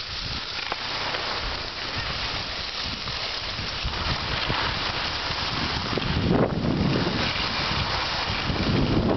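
Wind rushing over the microphone while skiing downhill, over a steady hiss of skis sliding on snow; the low wind rumble grows stronger from about halfway through.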